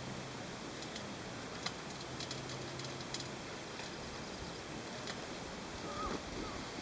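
Chairlift ride: steady hiss of moving air with scattered faint clicks and a low hum, and a short squeak near the end.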